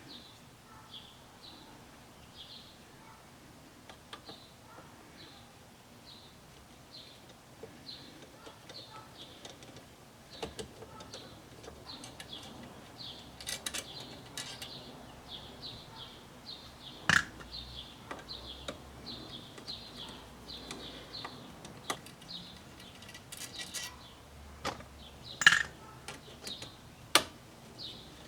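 Screws being taken out of the horn contact on a C3 Corvette steering column: scattered sharp metallic clicks and clinks from the screwdriver and screws, the loudest a little past halfway and near the end, over a faint high chirp repeating about twice a second.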